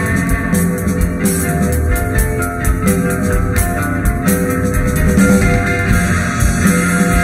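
Instrumental rock band playing: guitar, bass and drum kit, with sustained guitar notes over a steady drum beat.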